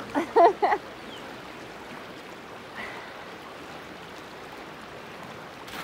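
Steady rush of a fast river current. A person's voice calls out briefly about half a second in.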